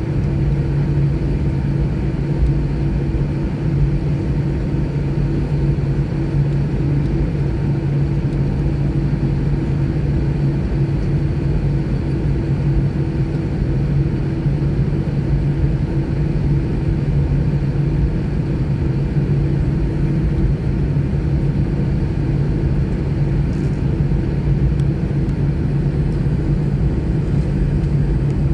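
Airbus A320's CFM56-5B engines idling as the jet taxis after landing, heard from inside the cabin over the wing: a steady low hum over a rumble.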